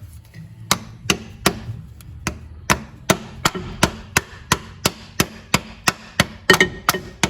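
A steady run of sharp taps, about three a second, evenly spaced.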